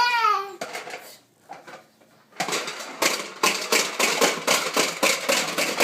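A baby's squeal of laughter falls away at the start. After a short lull, a vacuum cleaner starts about two and a half seconds in and runs noisily with a fast, uneven pulsing.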